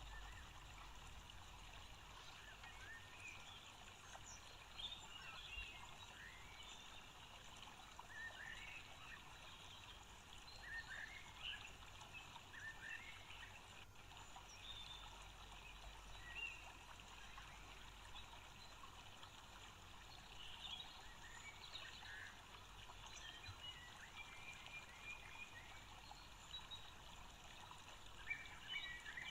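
Near silence: faint background hiss with scattered faint, short high chirps.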